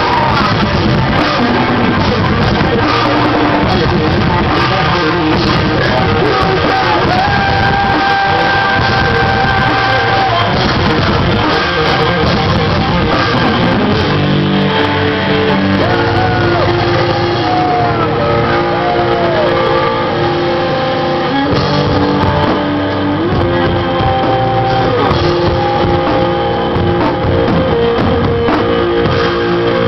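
Live rock band playing a song: a sung vocal line with held and sliding notes over guitar and drums, loud and continuous.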